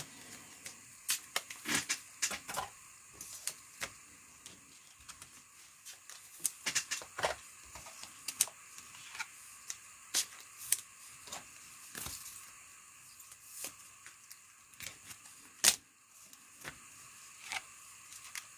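Trading cards and their pack wrappers being handled: irregular small clicks, taps and light rustles as cards are flipped, slid and set down, with one sharper click about three-quarters of the way through.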